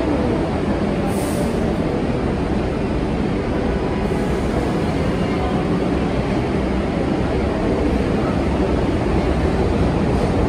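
New York City subway train noise in an underground station: a steady low rumble throughout, with a short high hiss about a second in.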